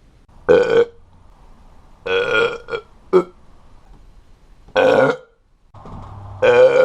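A man burping loudly, about five separate burps a second or two apart. The one near the end is the longest, lasting close to a second.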